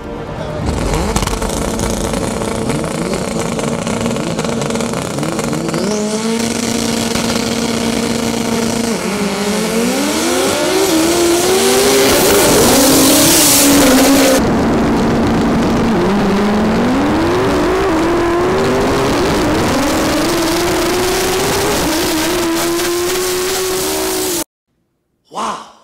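Two boosted front-wheel-drive drag cars, one with a Honda K-series engine and one with a Nissan SR20, launching off the line and accelerating hard down the strip. The engine note climbs and then drops back at each upshift. The sound cuts off abruptly near the end.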